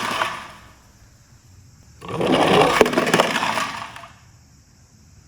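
Plastic toy vehicles rolling and rattling over a hard slope. There are two clattering runs with a few sharp clicks: one dies away within the first second, and the next starts about two seconds in and fades a couple of seconds later.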